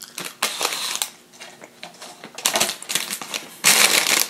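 Close-miked crunching bites and chewing of crispy fried fast food, in a quick run of crackly clicks. About three and a half seconds in, a loud, brief rustle of a paper food wrapper.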